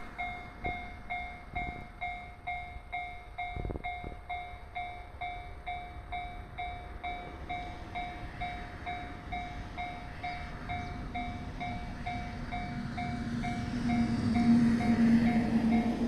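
Japanese level-crossing warning bell ringing in a fast, even ding-ding, about two to three strikes a second, while the crossing is down for a train. From about halfway a two-car electric train draws near, its running noise and a low motor hum growing and loudest near the end.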